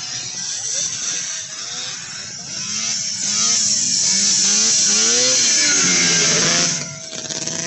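Vintage two-stroke snowmobiles racing at full throttle down a drag track, the engine pitch wavering up and down. It swells to a loud rushing sound as a sled passes close, then cuts off suddenly near the end.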